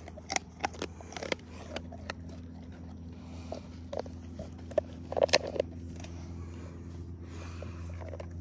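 Basset hound chewing a dried pig ear: irregular sharp crunches and clicks, bunching together about five seconds in, over a steady low hum.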